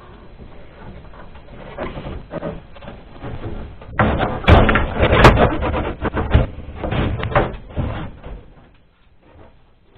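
Front cover panel of a Wolf CWL 300 home ventilation unit being handled and pushed onto the casing. There is quiet shuffling at first, then from about four seconds in a loud stretch of knocks, scrapes and rattles with two sharp clicks, which dies away after about eight seconds.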